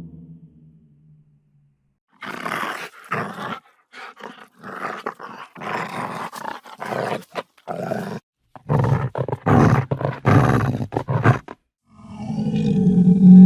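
Lion sounds: a string of short, rough growls and snarls, then a loud, deep roar that builds near the end.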